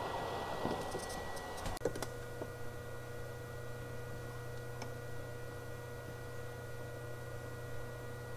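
Light clicks and taps of metal tools, tweezers and soldering iron, working on a circuit board. About two seconds in this gives way to a steady electrical hum with a few faint constant whining tones.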